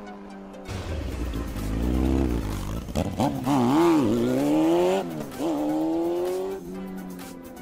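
Race car engine revving, its pitch climbing, dipping and climbing again several times, over a low rumble in the first couple of seconds.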